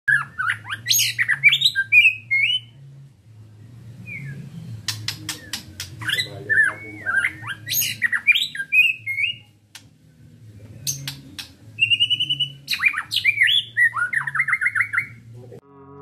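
White-rumped shama (murai batu) singing in three rapid phrases of varied whistles, trills and sharp clicks, with pauses of a second or two between them.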